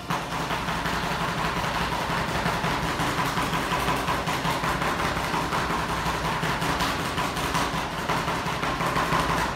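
Two metal spatulas chopping rapidly on a frozen steel rolled-ice-cream cold plate: a dense, steady metallic clatter over a low hum.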